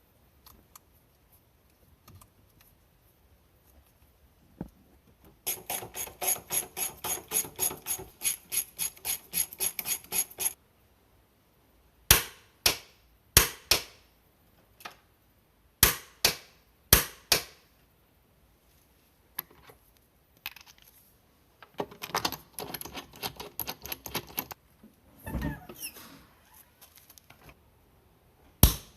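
Hand tools at work on a car: a ratchet wrench clicking about four or five times a second in two runs of several seconds each, with sharp metallic knocks of tools in between.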